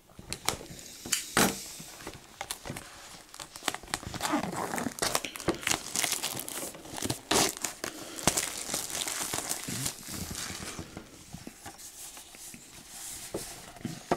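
Plastic shrink-wrap crinkling and tearing as it is pulled off a Blu-ray steelbook case, with sharp clicks and taps from the case being handled. The rustling is busiest in the middle.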